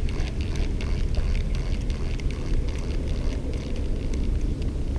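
Spinning reel being cranked to bring in line after a break-off, giving faint rapid ticking over a steady low rumble.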